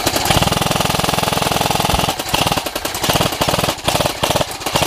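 Airsoft rifles firing on full auto: a rapid, continuous clatter of shots for about two seconds, then continuing in shorter bursts.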